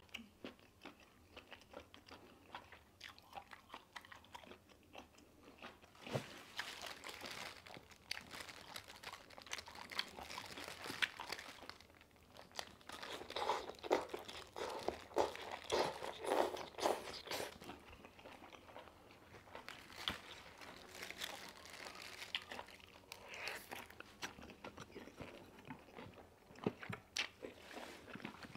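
Close-miked mouth sounds of a person biting and chewing steamed octopus in spicy sauce, with crisp, crunchy bites. The loudest run of bites comes about halfway through.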